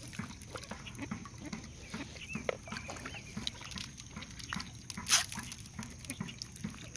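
A mallard hen and her ducklings calling, with short peeps and chirps throughout, and a handful of feed spattering onto the water about five seconds in.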